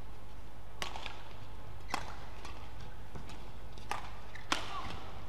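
Badminton rackets striking a shuttlecock in a doubles rally: four sharp hits, the last two close together and the last the loudest, over a steady low hum.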